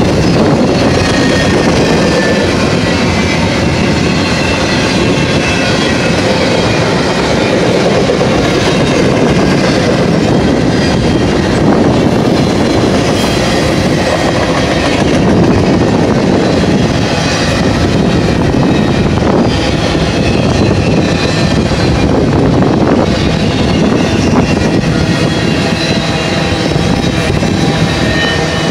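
Double-stack container train of well cars rolling past at close range: a loud, steady rumble of steel wheels on rail, with thin high wheel squeals coming and going.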